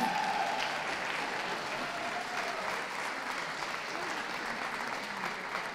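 Audience applauding steadily for a dog being presented in the show ring.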